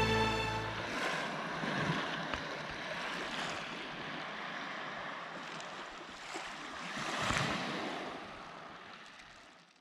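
Music fades out in the first second, then sea waves wash in against the shore in swelling rushes, the loudest about seven seconds in. The sound cuts off abruptly at the very end.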